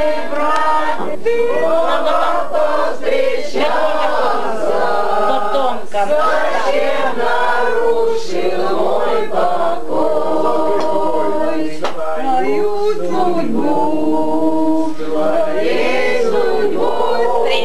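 A group of people singing together unaccompanied, several voices holding long notes.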